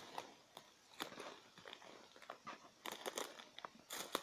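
Footsteps crunching on the forest floor, with twigs crackling and branches brushing as someone pushes through dense undergrowth: faint, irregular crackles and rustles.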